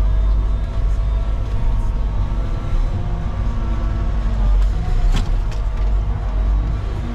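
Volvo EWR170E wheeled excavator's diesel engine and hydraulics running, heard from inside the cab, a deep steady rumble with a whine that drifts up and down in pitch. There is a single sharp click about five seconds in.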